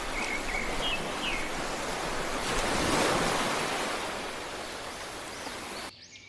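Small waves washing on a sand beach: a steady hiss of surf that swells about three seconds in, with a few short bird chirps near the start. The surf cuts off suddenly near the end.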